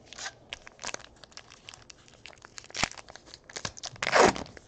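Foil wrapper of a Panini Elite Draft Picks football card pack crinkling and crackling as it is handled, then ripped open with one loud tear near the end.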